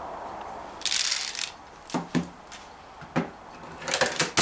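Daisy 340 spring-piston BB pistol being handled and cocked: a brief rustle about a second in, then several sharp plastic-and-metal clicks of the slide being worked, with a quick cluster of clicks near the end.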